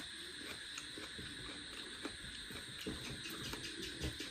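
Quiet eating by hand: chewing a mouthful of pulao and mutton, with small scattered clicks and scrapes of fingers mixing rice on a metal plate, over a steady faint hiss.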